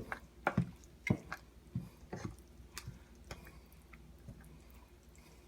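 A spoon stirring thick black gram dal in a pot, with a handful of light knocks and scrapes against the pot in the first few seconds before it goes quiet.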